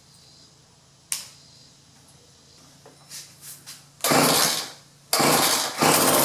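Poulan 445 Pro pole saw's small two-stroke engine being pull-started: after a click and a few light ticks, it fires loudly about four seconds in for under a second and drops away, then fires again about a second later and keeps running.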